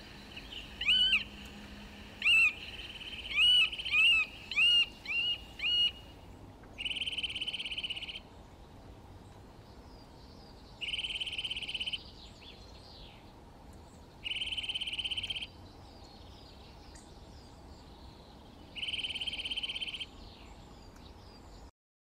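Eurasian nuthatch calling. First comes a run of about seven loud, sharp notes, each rising and falling in pitch. Then come four even, held phrases of about a second each, a few seconds apart.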